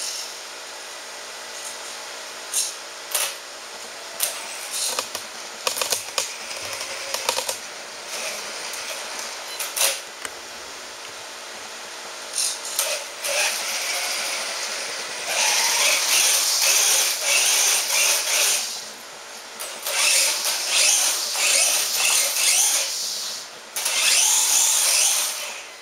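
Brushless electric motor and drivetrain of a 1/10-scale RC truck whining under throttle, first in many short blips, then in three longer runs of a few seconds each in the second half.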